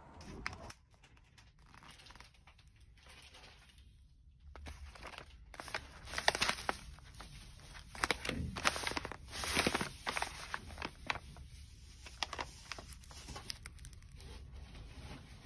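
Knorr risotto packets crinkling as they are picked up and handled, in irregular crackles that are loudest about five to ten seconds in.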